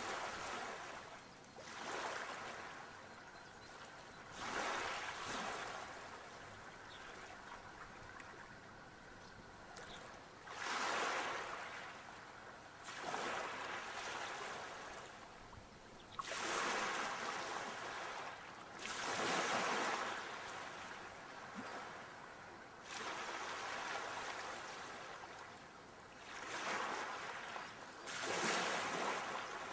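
Sea waves washing onto a shore, the rushing sound swelling and fading again every two to four seconds.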